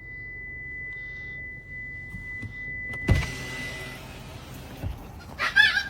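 A steady high tone over a low rumble, with a loud knock about three seconds in; near the end a dog gives a short, wavering whine-like cry that sounds like a word.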